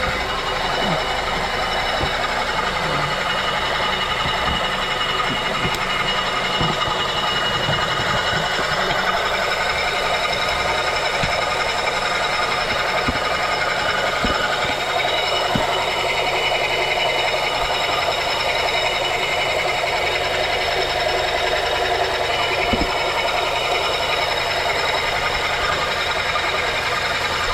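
Honda K24 2.4-litre inline-four engine running steadily, a continuous mechanical noise with many steady high tones and light scattered ticks.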